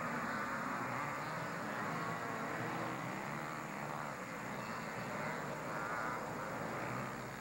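Several racing ATV engines buzzing and revving up and down as the quads climb the dirt track, heard at a distance.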